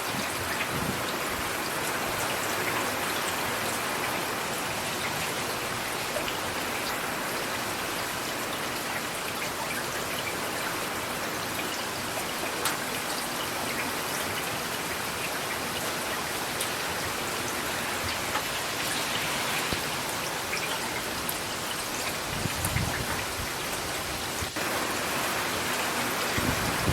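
Steady heavy rain: an even hiss of rainfall with scattered individual drop ticks. A brief low rumble comes about three quarters of the way through.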